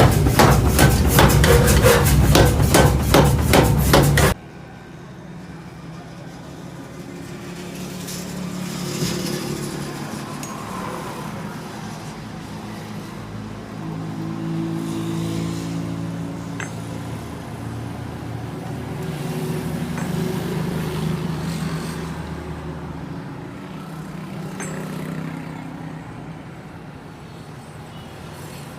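Rapid metal hammering, several blows a second, that cuts off suddenly about four seconds in. It gives way to a quieter engine hum that swells and fades several times, like passing vehicles.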